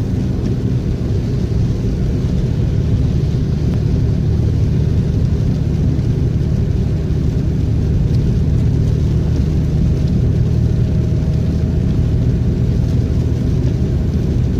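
Car driving at a steady pace: an even engine hum and road noise with no change in speed.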